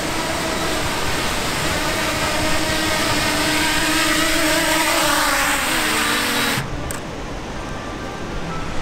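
Small folding quadcopter drone's propellers whining steadily as it flies low to the ground to land, the pitch shifting partway through. About two-thirds of the way in, the rushing background noise cuts off suddenly, leaving a fainter motor whine.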